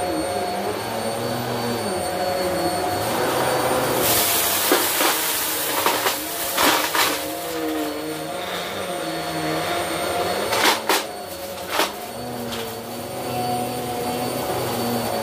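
Upright vacuum cleaner running with its brushroll turning on carpet: a steady motor whine that wavers as it is pushed back and forth. About four seconds in, a rush of hissing air sets in, and a few sharp clicks and rattles follow, with more just before the end.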